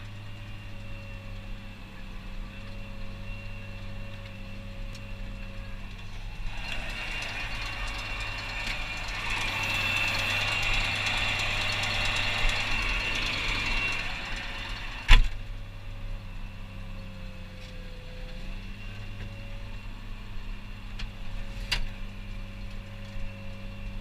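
Tractor engine running steadily, heard from inside the cab. From about six seconds in it grows louder and noisier for about eight seconds while the cab is open and the hydraulic control levers are worked. A single sharp knock comes about fifteen seconds in, and a lighter click near the end.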